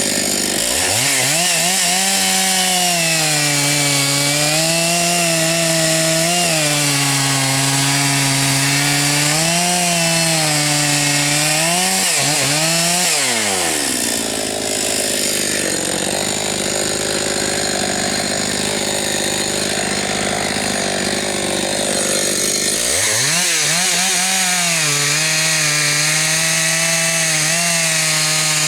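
Husqvarna 272XP two-stroke chainsaw running at high revs through a cut in firewood logs, its pitch sagging and recovering as the chain takes the load. The revs drop off about 13 seconds in, and the saw is run back up to full throttle about 23 seconds in.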